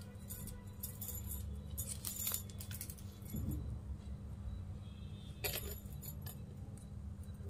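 Stiff plastic weaving wire clicking and rustling in short, irregular bursts as strands are threaded and pulled tight through the knots, over a low steady hum.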